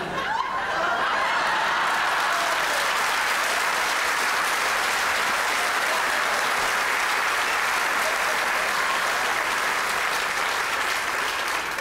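Live theatre audience applauding, with some laughter at the start: a long, steady round of applause that eases off near the end.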